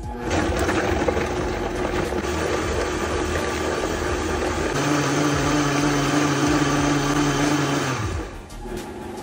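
Vitamix blender motor starting up and running hard, chopping whole tangerines in liquid into a smooth batter. About halfway through, a steady hum comes in as the mix smooths out. The motor then winds down and stops about eight seconds in.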